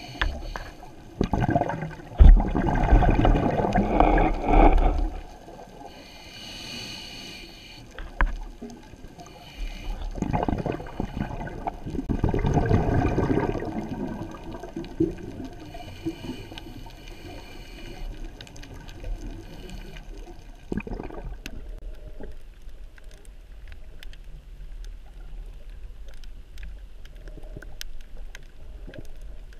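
Scuba diver breathing through a regulator, heard underwater: a hissing inhale, then a long burst of exhaled bubbles, twice in the first fifteen seconds. After that there is a quieter watery wash with scattered faint clicks.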